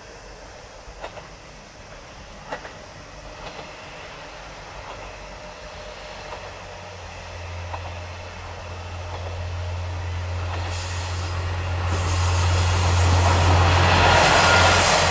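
JR Kyushu's two-car 'Aru Ressha' diesel railcar train (converted KiHa 47 cars) approaching and passing close by. A low, steady engine hum grows louder from about halfway in, then the rush of wheels on the rails swells sharply in the last few seconds as the train goes by.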